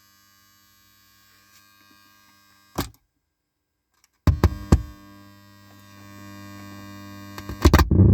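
Electrical buzz through car stereo speakers: a steady hum with many overtones, the interference the AUX input picks up while the headlights are on, which the uploader traces to the ground wiring of the AUX connection. It cuts off with a click about three seconds in and comes back with loud clicks about a second later, growing louder near the end.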